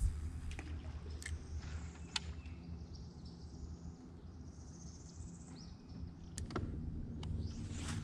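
Steady low hum of a bow-mounted electric trolling motor holding the bass boat in position, with a few sharp clicks from fishing rod and reel handling.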